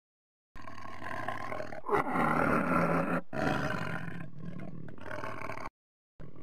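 Lion roaring, added as a sound effect. It comes in about half a second in, is loudest between about two and three seconds in, and then trails off, with a brief cut-out near the end.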